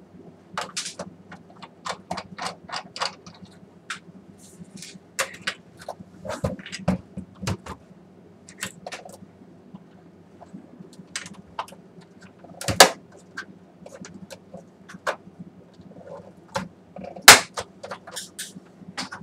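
Irregular clicks, taps and scrapes of a BenQ MP515 projector's plastic casing being taken apart with a small screwdriver, with two sharp snaps, a little past halfway and near the end, as the cover is pried loose. A low steady hum runs underneath.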